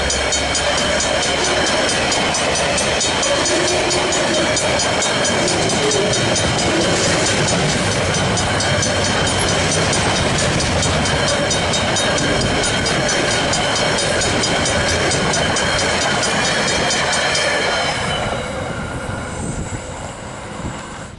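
Griswold mechanical level-crossing bells ringing rapidly and steadily over the rumble and wheel clatter of a passing container freight train. Near the end the train clears and the bells stop, leaving the sound much quieter.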